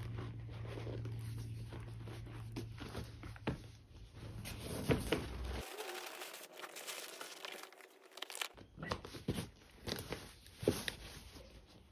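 Tissue paper crinkling and rustling as it is pushed into a leather handbag to restore its shape, with small clicks and soft knocks from handling the bag.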